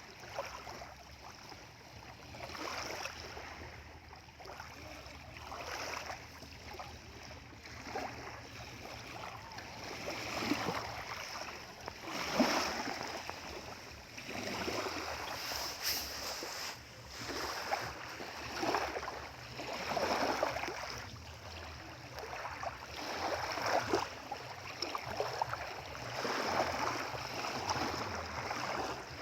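Small waves on the Sea of Galilee washing and splashing against the shore, one swell every couple of seconds, with a steady low hum underneath.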